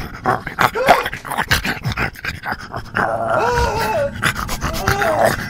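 A man panting quickly in fright for about three seconds, then letting out high, wavering whimpers.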